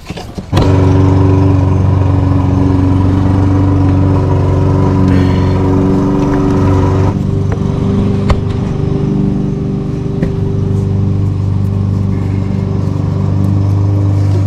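A small engine starts up suddenly and runs steadily at a constant speed.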